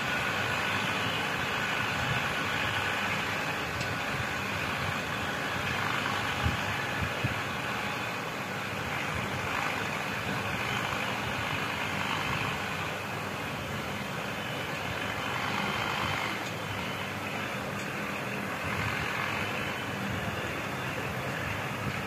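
Universal 640 DTC tractor's diesel engine running steadily under load while pulling a plough, as a continuous even drone mixed with outdoor noise. Two brief knocks stand out about six and seven seconds in.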